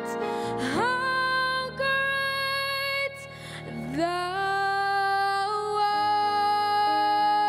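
Music: a woman singing long held notes, sliding up into each new note, over a gentle accompaniment.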